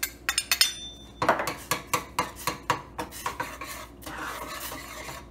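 Metal serving spoon clinking against a small glass bowl as the flour is knocked out, then stirring flour into water in a metal saucepan for a water roux, the spoon knocking against the pan about twice a second before settling into a steadier scraping.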